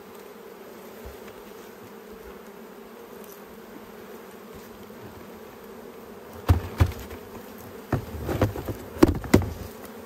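Honeybees buzzing in a steady hum. From about two-thirds of the way in come about half a dozen sharp knocks, the loudest sounds, as the nucleus box is knocked to shake the last bees out into the new hive.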